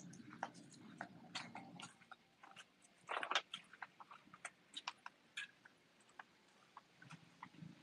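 Faint, irregular light clicks and crunches of footsteps and small dogs' paws on paving stones, with a louder rustle about three seconds in. A low hum lies underneath at the start and again near the end.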